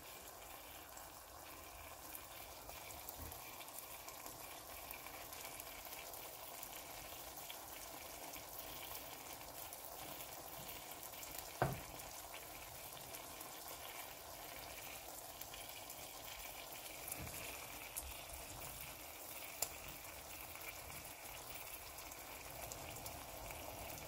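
Eggs frying in olive oil in a stainless steel skillet: a faint, steady sizzle with scattered small crackles. One louder click about halfway through.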